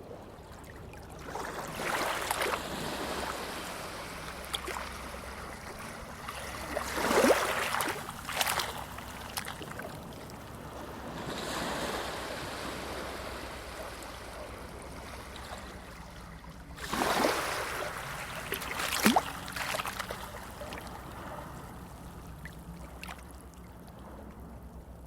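Sea waves breaking and washing in, about four surges that each swell and fade away, with brief sharper splashes at the crests.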